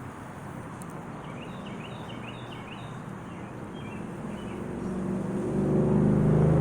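A motor vehicle's engine hum rising steadily in the second half as it approaches, over a steady outdoor background hiss. A few faint, short high chirps come early on.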